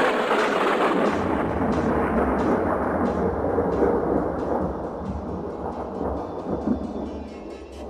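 A sudden rush of rumbling noise that slowly fades away over several seconds, set between stretches of music.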